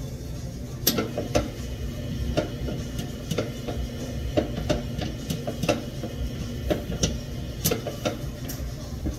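Irregular clinks and knocks of kitchen utensils and dishes being handled, about two a second, over a steady low rumble.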